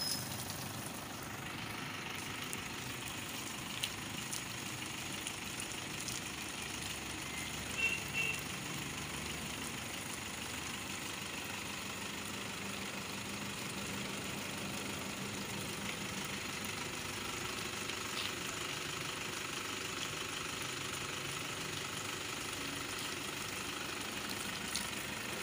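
Steady hiss of water spraying from a hose nozzle onto an SUV's hood and body panels, over a constant motor hum, with a couple of faint clicks.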